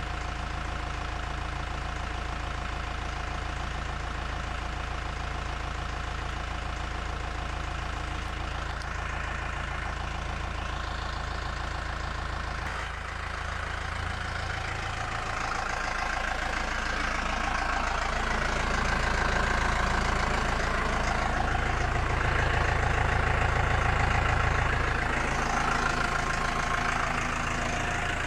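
Massey Ferguson 2435 tractor's diesel engine idling steadily. It grows louder from about halfway through, then eases back near the end.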